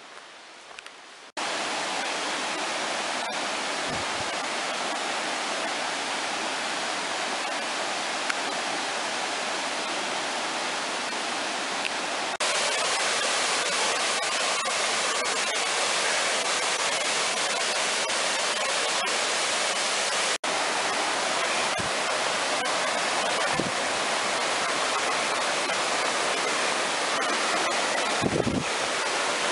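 Mountain creek rushing and splashing over rocks in small cascades, a steady rush of water that sets in about a second in and grows louder partway through.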